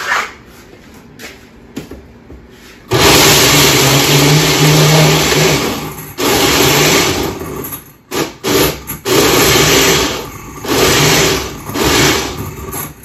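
Countertop blender pureeing dog food kibble and goat milk into a thick puppy mush. After a few clicks it runs for about three seconds, then in a series of shorter pulses with brief stops in between.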